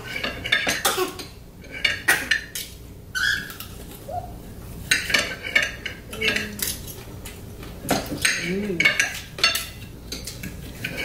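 Knife and fork scraping and clinking against ceramic plates as food is cut and eaten, in irregular short strokes.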